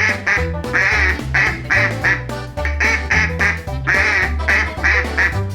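A duck quacking, about a dozen short quacks in quick runs, over background music with a steady bass line.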